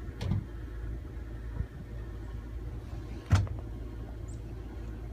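Four-wheel-drive vehicle's engine idling, a steady low rumble, with two sharp knocks: a light one just after the start and a louder one about three seconds in.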